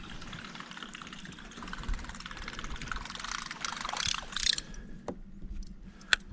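Water splashing and trickling close by, a dense patter of small splashes that dies away about two-thirds of the way through, followed by a couple of sharp clicks.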